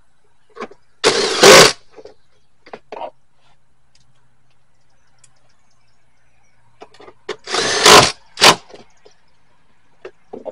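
Cordless power driver running in two short bursts, about six seconds apart, to run in the 10 mm bolts that hold the door panel and door pull. Light clicks and knocks from handling the panel come in between, with a sharper click just after the second burst.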